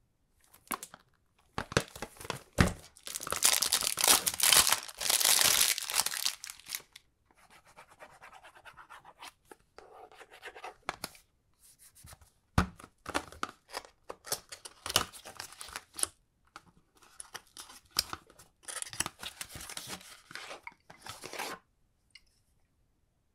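Cardboard perfume box being opened by hand: loud tearing and crinkling of the packaging for several seconds, then scattered taps, clicks and short rustles. Near the end another stretch of rustling as the bottle is drawn out of the box.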